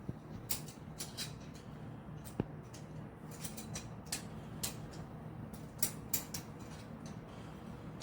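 Irregular light clicks and taps, a dozen or so spread unevenly, over a faint steady low hum.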